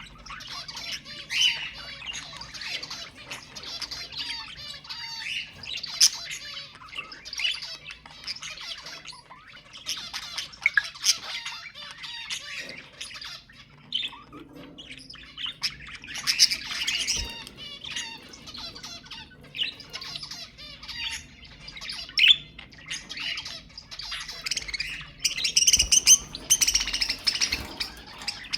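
Budgerigars chattering and warbling continuously, with quick chirps and squawks in runs of a second or two between short pauses, loudest near the end.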